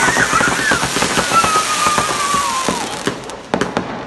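Fireworks going off: a dense crackle of pops and bangs, with a long whistle sliding slowly down in pitch. The crackle thins out and the volume drops near the end.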